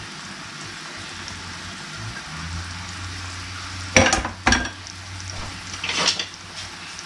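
Chopped garlic sizzling steadily in olive oil in a frying pan, with fresh basil and parsley just tipped in. Sharp kitchenware clatters come about four seconds in, again just after, and near six seconds.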